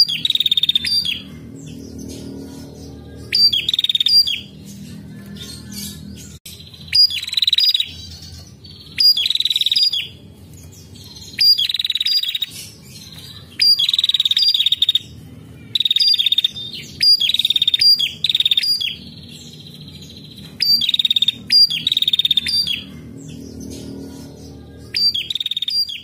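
Female prenjak calling busily: loud, rapid chattering bursts about a second long, repeated every two seconds or so, over a steady low hum.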